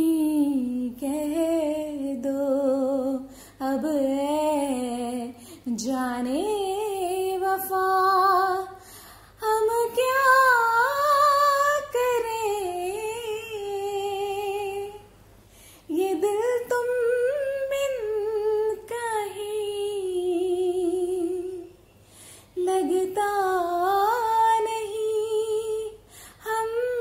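A woman singing a few lines of a song alone, unaccompanied, in long held phrases with a wavering vibrato and short breaks between them.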